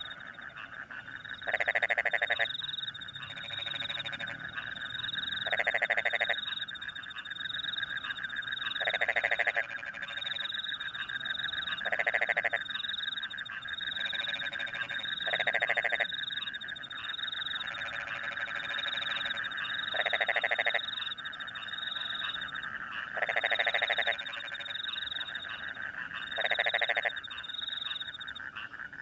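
Rice-paddy frogs calling in chorus after rain. One loud, rapidly pulsed croak about a second long comes back about every three seconds over a continuous trilling of other frogs and crickets, with quick high chirps running through it.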